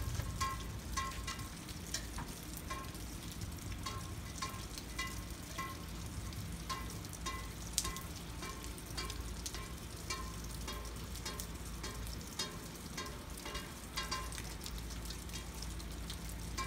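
Rain falling steadily, with frequent water drops plinking close by at an irregular pace.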